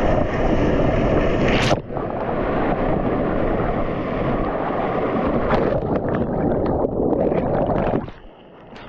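Whitewater rapids rushing loudly around a kayak, with wind buffeting the microphone and a brief sharp knock just under two seconds in. The rushing drops off abruptly about eight seconds in.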